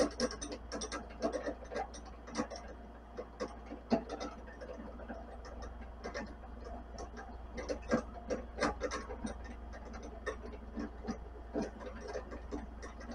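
Vevor 7x14 mini lathe running while turning a length of rebar, a steady motor hum under frequent irregular clicks and scrapes as the cutting tool meets the hard rebar.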